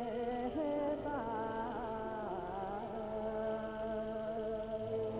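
Traditional Khmer song: a voice sings a slow melody, bending and gliding between notes, then holds one long steady note over a low steady accompaniment.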